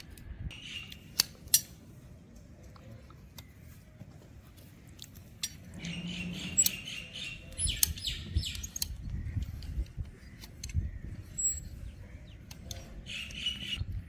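Small birds chirping in short bursts three times: about a second in, midway, and near the end. Under them are scattered sharp clicks and scraping from hand tools trimming a calf's hooves; the loudest click comes about a second and a half in.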